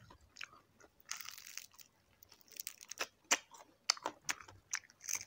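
Crispy deep-fried chicken feet being bitten and chewed close to the microphone: irregular crisp crackles and clicks, with a short rustling crunch about a second in.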